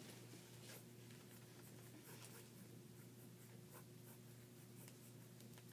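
Faint scratching of a pen on sketchpad paper, drawing in short irregular strokes, over a steady low hum.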